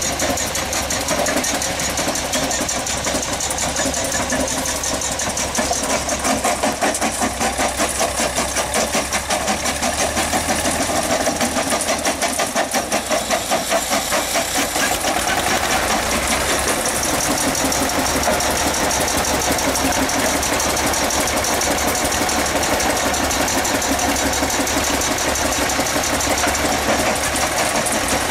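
Diesel engine running at a steady idle with a fast, even knocking beat.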